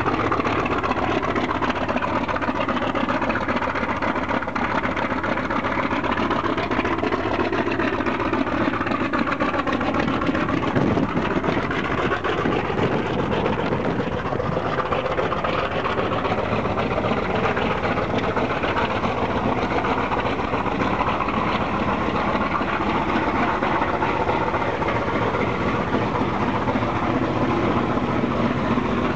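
Ilyushin Il-14's right-side Shvetsov ASh-82T fourteen-cylinder radial piston engine running steadily at idle, loud and continuous, while the left engine stands with its propeller still.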